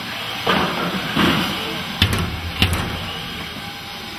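Combat robots knocking into each other: two sharp knocks a little over half a second apart about halfway through, the first followed by a brief low rumble, over a steady background din.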